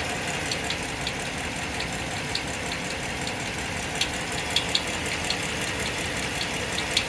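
2015 Ram 1500 engine running, with short, high-pitched chirps coming through at irregular intervals of about two a second. The cause is not confirmed even after the torque converter and flywheel were replaced; the uploader puts it down to sludge build-up inside the engine.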